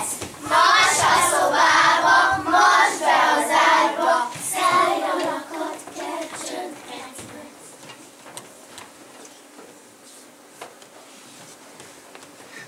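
Children singing together for about five seconds, then the sound drops away to quiet stage noise with a few soft knocks.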